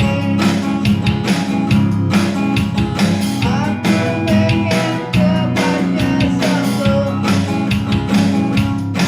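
Music: a guitar-backed song with a steady beat.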